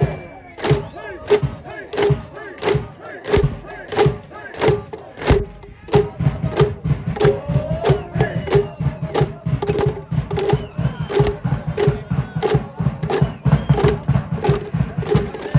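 Stadium cheering section chanting and shouting in unison to a steady drum beat with band music; the beat quickens about six seconds in.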